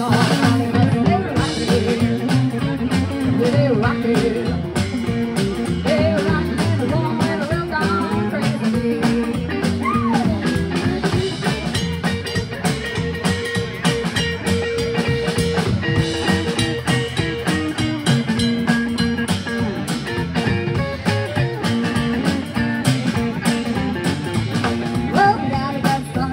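Live rock and roll band playing: upright bass, drum kit and electric guitar keeping a steady beat, with a woman singing at times.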